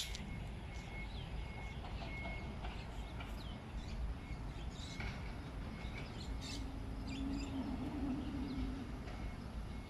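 Small birds chirping in short, scattered calls over a steady low rumble of outdoor background noise. A low hum swells and fades about seven to nine seconds in.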